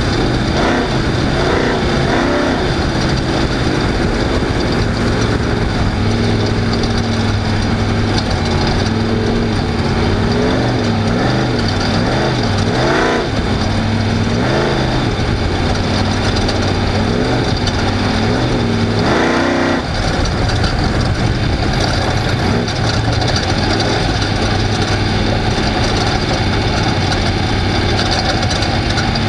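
Off-road race vehicle's engine running hard, its revs rising and falling again and again through the middle stretch, then settling to a steady drone, over constant noise of the vehicle moving over rough ground.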